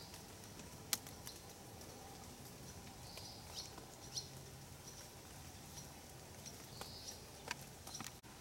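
Raindrops tapping on an umbrella in scattered, irregular ticks over a faint steady rain hiss. A bird gives a short high note three times, about three seconds apart.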